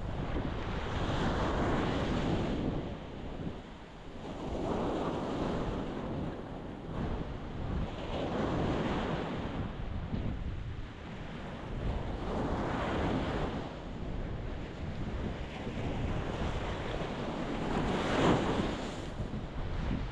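Ocean waves breaking against a rocky shore: five surges of surf, each swelling and washing back, over a steady low rumble of the sea. The loudest wave breaks near the end.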